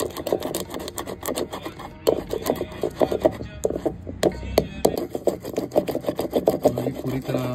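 Thick wooden pestle grinding a coarse mix of poppy seeds, nuts and black peppercorns in a clay pot: rapid, uneven scraping and knocking strokes of wood on earthenware, several a second.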